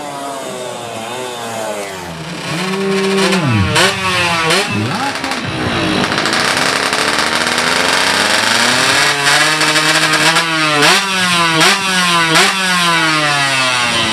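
116cc racing underbone motorcycle engines at full throttle. The pitch climbs and then drops again and again as the bikes shift up through the gears, with a quick run of shifts near the end. The sound grows louder about two seconds in.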